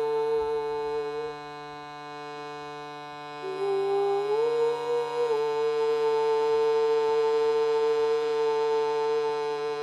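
Shruti box reeds sounding a steady drone in the key of C, with a wordless sung voice over it holding long notes. The voice pauses for a breath about a second in, comes back lower a couple of seconds later, slides up, and holds the higher note.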